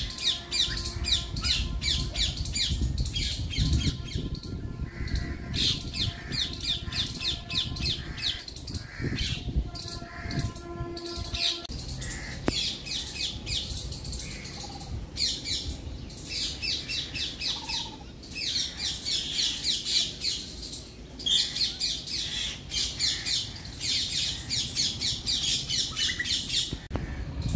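Birds chattering: rapid runs of harsh, scratchy calls, many per second, in repeated bouts with short pauses between them.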